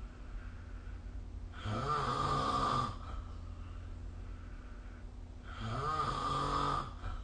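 A sleeping person snoring, recorded on a phone: two snores about four seconds apart, each a little over a second long, over a steady low background hum.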